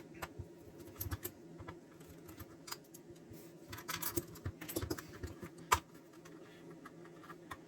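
Irregular small clicks and taps of hands working at a small plastic clock-thermometer case, prying the button-cell battery out of its compartment. The sharpest click comes about two thirds of the way through.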